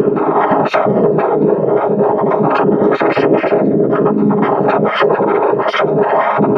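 Loud, heavily effects-processed electronic audio: a dense, synthesizer-like tone with rapid stuttering, scratch-like cuts several times a second.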